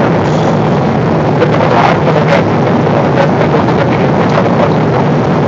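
Steady cabin noise inside a Boeing 777 airliner in flight: the even rush of airflow and engines, with no thunder or other sudden sound standing out.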